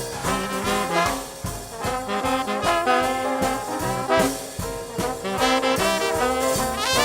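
Traditional Dixieland jazz band playing live with no singing, the horns carrying the melody over a steady beat. Near the end a horn slides up into the next phrase.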